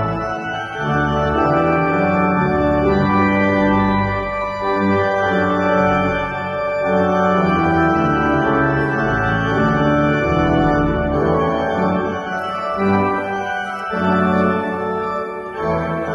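Organ music: a slow piece of sustained, full chords that change every second or two.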